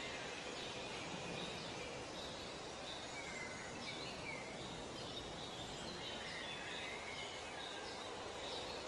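Outdoor ambience: scattered bird chirps and short gliding calls, several a second, over a steady hiss.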